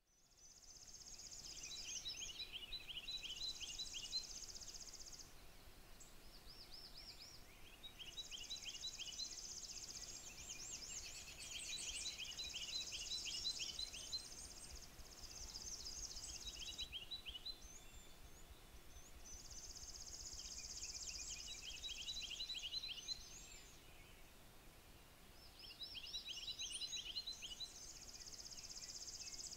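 Songbirds singing in bouts a few seconds apart: high, buzzy trills alternating with quick series of short falling notes.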